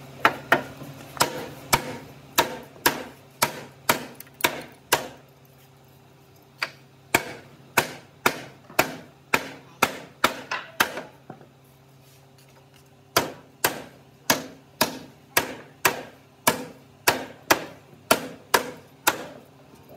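Hammer blows on a wooden block held against a hardwood table frame, about two sharp knocks a second in three runs separated by short pauses.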